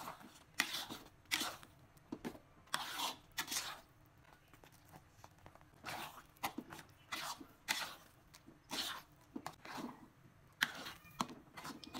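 A spatula stirring and folding thick mashed potato in a nonstick pan: faint, irregular soft scraping strokes about one every half second to a second, with a lull from about four to six seconds in.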